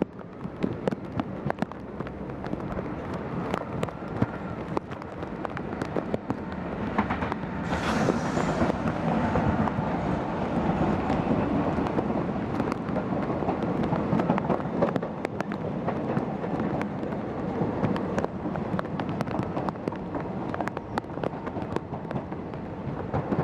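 Passenger train running at speed, heard from on board: a steady rumble with frequent sharp clicks and clatter from the wheels on the track. A brief rush of noise comes about eight seconds in.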